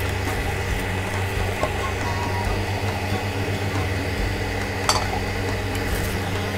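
A steady low hum with a few faint ticks, and a single sharp clink of a metal pot lid being handled about five seconds in.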